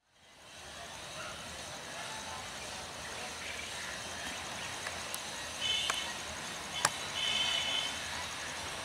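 Railway station platform ambience fading in: a steady background of distant voices and activity, with two sharp clicks and a couple of short high-pitched calls around six to eight seconds in.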